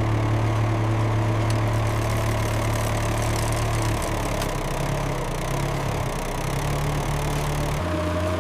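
A motor running steadily under the winching, a low even drone whose pitch shifts about four seconds in and again near the end.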